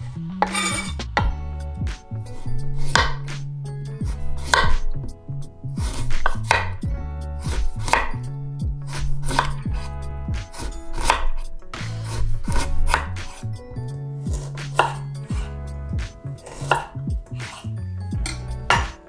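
Chef's knife slicing a green lemon and ginger on a wooden cutting board, with sharp knife-on-board strikes about one or two a second. Background music with a bass line runs underneath.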